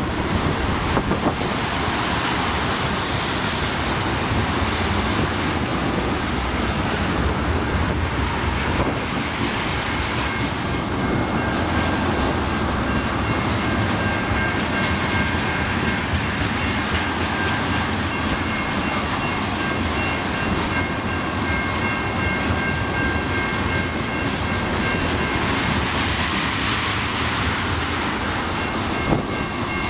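Freight train of ethanol tank cars rolling steadily past, wheels clattering over the rail joints with a continuous rumble. A high, steady ringing tone joins in about ten seconds in.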